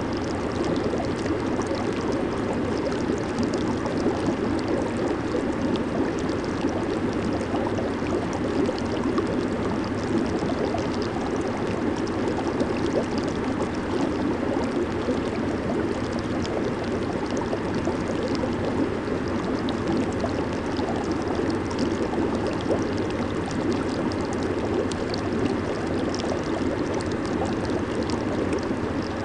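Jacuzzi water churning and bubbling in a steady, even rush, with a fine fizzing crackle over a fuller low wash.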